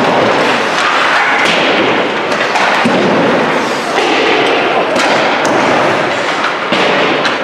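Ice hockey practice: a steady, loud wash of rink noise from skating players, broken by sharp knocks of pucks and sticks against the boards and glass, a few of them in the second half.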